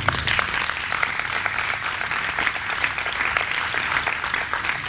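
An audience applauding, the clapping of many hands at an even strength.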